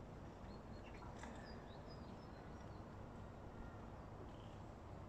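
Faint outdoor ambience: a steady low rumble with a few short, high bird chirps in the first half.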